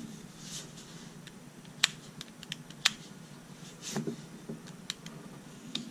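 Small lever-sprung scissors of a Wenger Swiss Army knife being opened and worked: a series of light, sharp metal clicks and snips, with two louder clicks about a second apart.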